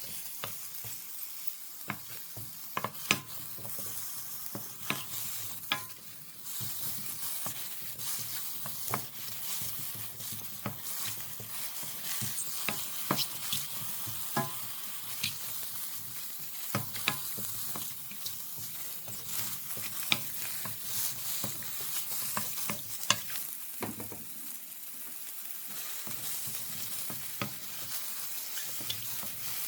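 Julienned king oyster mushrooms sizzling as they stir-fry in a hot pan, with a steady hiss. A utensil stirs them and clicks against the pan at irregular moments.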